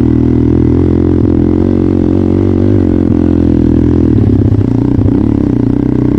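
Trail motorcycle engine running steadily at low-to-middle revs while riding, its pitch rising and falling slightly with the throttle.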